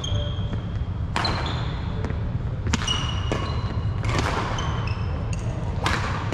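Badminton rally: racket strings hitting the shuttlecock about every one to two seconds, with short high squeaks of shoes on the wooden court floor between the hits. A steady low hum runs underneath.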